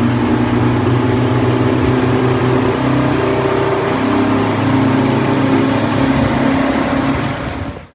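A boat's engine running steadily at speed, under a rush of water and wind. It fades out near the end.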